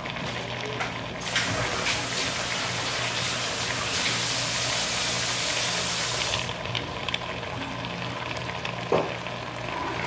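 Kitchen tap running in a full, hissing stream for about five seconds while hands are rinsed, starting and stopping abruptly. A low steady hum runs underneath, and a short knock comes near the end.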